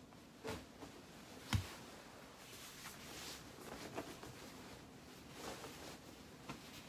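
Soft rustling of a thick white duvet being lifted and handled off a bed, with a single thump about a second and a half in and a few lighter knocks.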